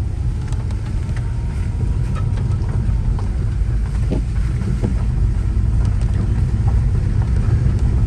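Steady low road rumble inside an Audi's cabin as it drives along a gravel road, tyres and running gear over loose gravel, with a couple of light knocks about four and five seconds in.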